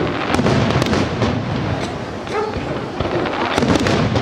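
Fireworks display: a dense, continuous run of bursting shells and crackling, with heavy clusters of bangs just after the start and again near the end.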